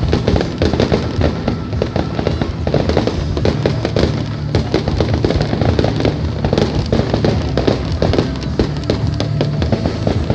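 Fireworks going off in quick succession: a dense, continuous run of crackles and bangs, with music playing underneath.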